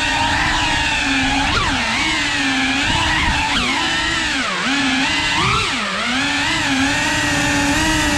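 Cinewoop FPV drone's motors and ducted propellers buzzing in flight. The pitch holds steady, then dips sharply and climbs back several times as the throttle is cut and added.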